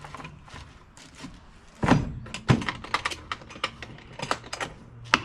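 Hard plastic carry case and tools being handled and packed: two dull thuds about two seconds in, then a run of sharp clicks and light knocks.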